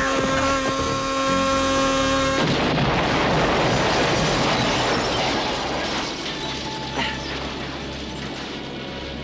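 A held droning tone, then about two and a half seconds in a large explosion as the beach house is blown up by an explosives-laden plane: a sudden blast that stays loud for a few seconds and dies away slowly.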